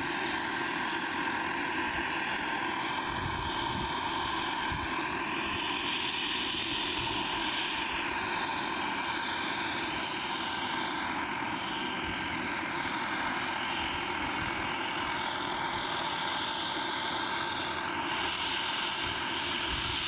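Radio-controlled model turbine helicopter hovering: the steady whine of its small jet turbine over the rotor noise, the high whine wavering up and down in pitch.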